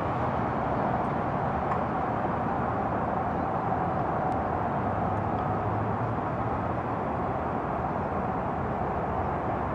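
Steady street traffic noise: a continuous even hum of cars on a wide roadway.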